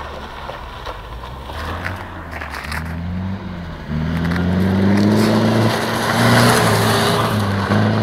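Off-road 4x4 engine running low, then revving up from about three seconds in and held at high revs through the loud middle while the wheels spin on packed snow. The revs drop back just before the end.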